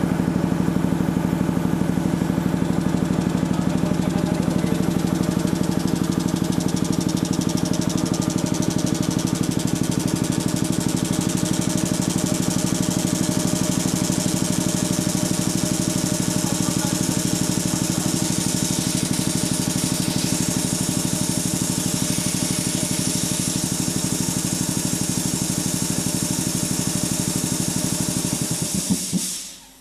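Sperre HV2/200 two-stage piston air compressor running steadily on test, with a fast, even beat and a hiss of air that grows stronger after several seconds. Near the end it shuts off and runs down within about a second.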